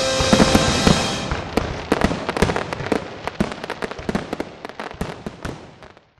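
A music soundtrack's final held chord ends about a second in, leaving a run of fireworks bangs and crackles that thin out and fade away.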